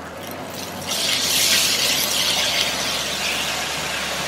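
Cabbage and carrots with freshly added oyster sauce sizzling in a hot nonstick wok while being stirred with a spatula; the sizzle gets louder about a second in and then holds steady.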